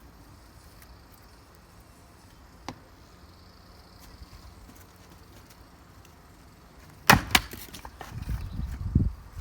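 An axe splitting firewood: after several quiet seconds, one sharp crack of the blade striking the log, a second crack right after, then a run of low, dull thuds as the wood gives and falls.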